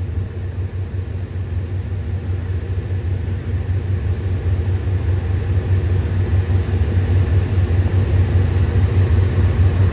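Low, steady diesel rumble of a KiHa 183 diesel railcar set running slowly toward the platform. It grows gradually louder as the train approaches.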